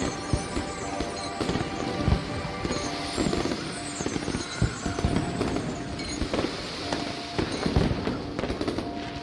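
Fireworks display with rockets and shells bursting overhead: a rapid, irregular series of bangs over continuous crackle. Music plays under it with steady sustained notes.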